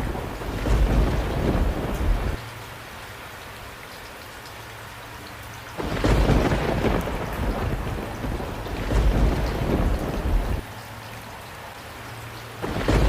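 Heavy rain with rolling thunder. Deep thunder rumbles come and go over a steady rain hiss: one rumbling stretch at the start cuts off after about two seconds, another comes in about six seconds in and cuts off near ten and a half, and a third begins near the end.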